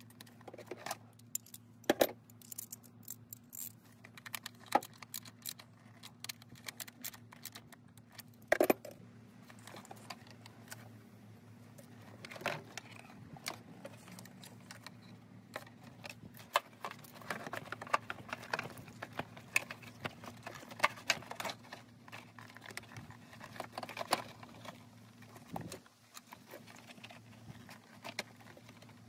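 Hard plastic clicks, taps and knocks of an engine-bay fuse box housing being handled and pushed into place, with two louder knocks about two seconds in and near nine seconds, and a busier run of small clicks in the second half. A faint steady hum runs underneath.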